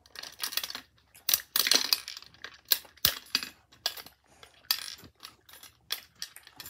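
Pennies clinking and the plastic coin-and-knob mechanism of a toy gumball machine rattling as a child works it to release a gumball: irregular clicks, clinks and short rattles throughout.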